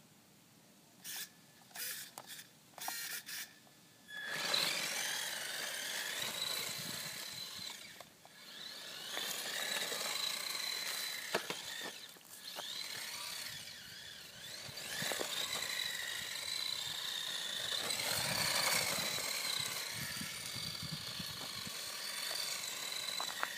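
Small electric motor and drivetrain of a 1/18-scale Latrax Rally RC car whining, its pitch rising and falling with the throttle, as the car drifts on asphalt on rear tyres wrapped in electrical tape. A few short throttle blips come in the first few seconds, then the car runs continuously from about four seconds in.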